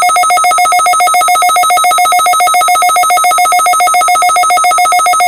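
A weather alert radio's built-in alarm going off for a weekly test: a loud electronic tone at one steady pitch, pulsing rapidly and evenly.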